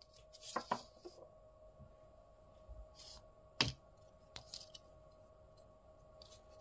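Toy diorama pieces being handled and set down on a cardboard surface: a few faint scattered taps and scrapes, with one sharper click about three and a half seconds in.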